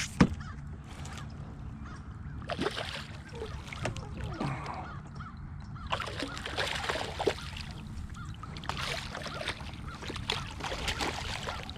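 Harsh, crow-like bird calls, repeated several times over a steady low background hum.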